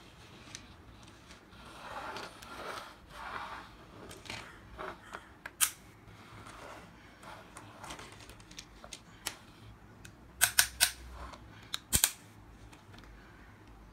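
Plastic toy excavator handled on a wooden tabletop among plastic building blocks: soft scraping as it is pushed, then sharp plastic clicks and clacks, with a quick cluster of clicks about ten seconds in and another near twelve seconds.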